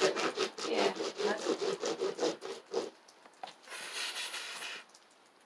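Hand saw cutting, fast back-and-forth strokes at about four a second, which stop about three seconds in. About a second later comes a short hiss.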